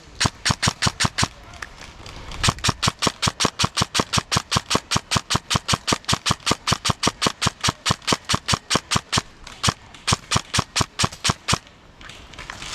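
Airsoft gun firing a long string of rapid, evenly spaced shots, about six a second, in three strings: a short one, a pause, a long run of about seven seconds, then another short string near the end.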